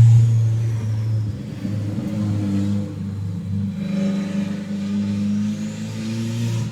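A car engine running, its pitch shifting up and down a few times.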